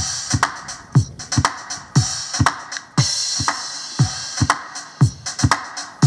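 Electronic drum-machine beat played live through a PA, with a deep kick that drops in pitch about twice a second and crisp hi-hat and snare strokes between the kicks. A hissing cymbal swell comes in about halfway.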